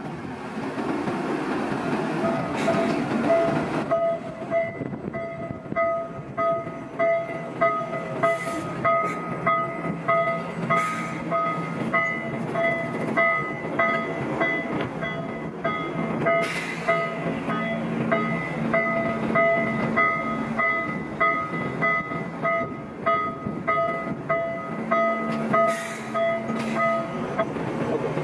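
Panama Canal electric towing locomotive (mule) running along its rail track beside the lock. It gives a steady multi-tone whine that starts about four seconds in, pulses about once a second and stops near the end.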